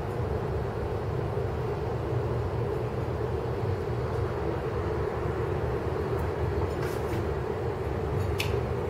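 Steady low mechanical rumble with a constant hum, with a few faint ticks near the end.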